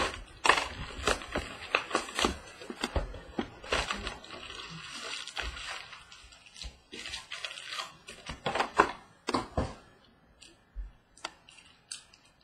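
A sealed box of 2015 Topps Stadium Club baseball cards being opened and its packs handled: plastic wrapper crinkling and cardboard and packs clicking and rustling. The sound thins to scattered light taps near the end.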